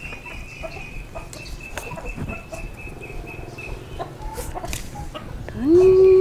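Chickens clucking faintly, with a few light clicks and a steady high whine throughout. Near the end a short, loud call rises in pitch and then holds briefly before cutting off.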